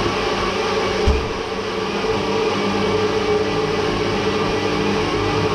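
A kitchen appliance motor runs steadily, a constant whirring drone with a low hum. There is a brief knock about a second in.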